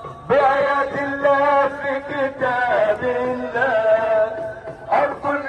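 Chanted singing: a melody in long held notes that slide from pitch to pitch, in the style of religious chanting.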